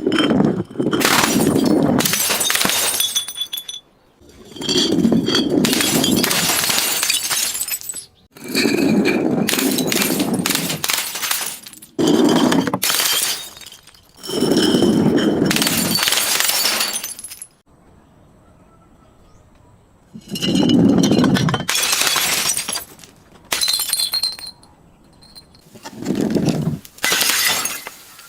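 Glass bottles being broken and crushed: a run of about eight loud crunching shatters, each lasting one to three seconds, with glass pieces clinking.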